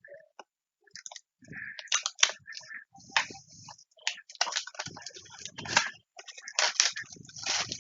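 Trading-card packaging being handled and opened: irregular crinkling, rustling and clicking of plastic wrap and cardboard.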